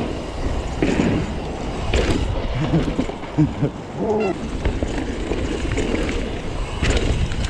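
Indistinct voices calling out now and then over a steady low rumble like wind on the microphone.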